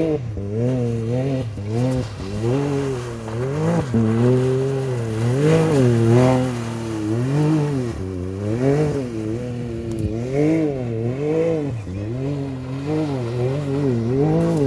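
Can-Am Maverick X3's turbocharged three-cylinder engine revving up and down repeatedly, its pitch rising and falling about once a second, as the buggy spins and slides through mud under power.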